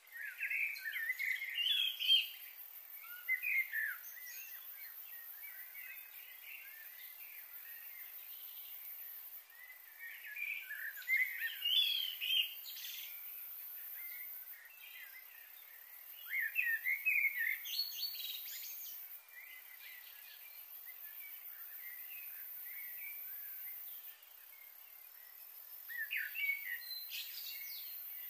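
Birds chirping in four short bursts of quick, twittering calls a few seconds apart, over a steady faint high hiss.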